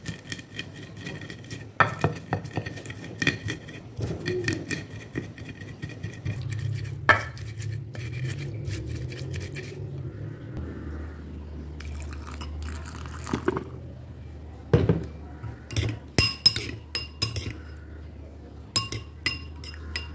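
Stone pestle crushing and grinding chillies and garlic on a flat stone mortar (ulekan on cobek): irregular knocks and scraping strokes. Near the end come sharper, ringing clinks, a metal spoon against a glass bowl.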